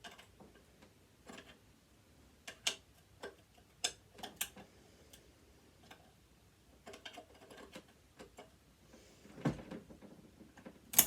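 Flat-head screwdriver clicking and scraping against a screw and the metal body of a sewing machine: scattered, irregular light metal ticks, with a louder knock about nine and a half seconds in.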